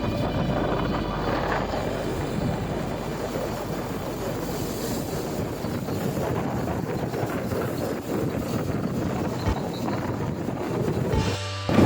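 Steady rushing noise of a vehicle on the move, with wind buffeting the microphone.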